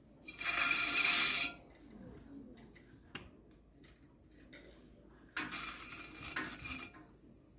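A rib and then a wet sponge scraping against the foot of a clay pot and the wheel head as the pottery wheel spins: two rasping passes, the first about a second long near the start and the second about a second and a half long in the second half.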